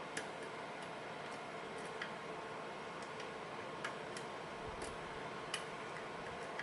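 Light, irregular clicks of a lock pick working the pins of a pin-tumbler lock, about one a second, over a faint steady hiss.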